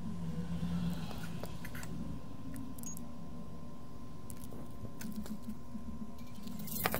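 Low bass of music playing through the Skullcandy Crusher Evo headset's drivers, with its bass slider turned all the way up, heard from the ear cups lying open. Scattered light clicks come from the plastic ear cups being handled and the phone screen being tapped, with a cluster of sharper clicks near the end.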